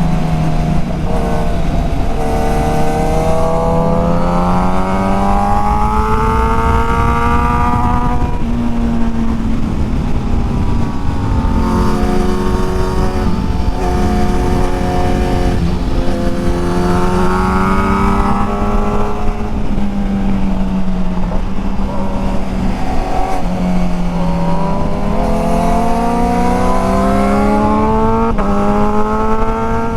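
Sport motorcycle engine accelerating hard several times, its pitch climbing for a few seconds and then dropping back as it shifts or eases off, over a steady rush of wind on the microphone.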